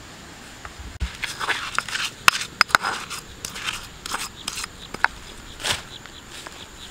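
Handling noise of raw pork being moved about on a bed of leaves: a dull thump about a second in, then irregular crinkling, rustling and sharp clicks that die away near the end.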